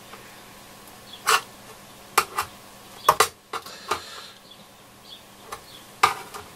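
Irregular small metallic clicks and taps from fingers working inside the opened Yaesu FRG-7700 receiver's chassis, bending the metal cable retainers and handling the wiring to free the main board.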